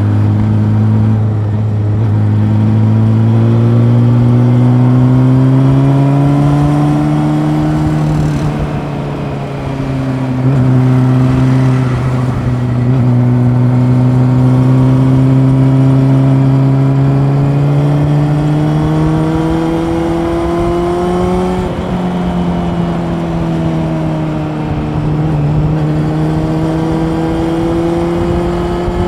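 Honda CB400 Super Four's inline-four engine heard from on the bike under way: the engine note climbs steadily in pitch, drops back about eight seconds in and again around twenty-one seconds in, and each time climbs again.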